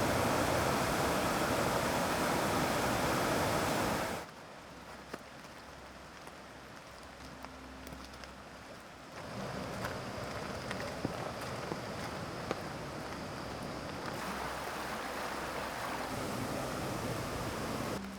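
Rushing mountain stream water, loud at first and then cut abruptly to a quieter stretch with a few scattered light ticks about four seconds in. From about nine seconds there is a steadier, moderate rush of flowing water.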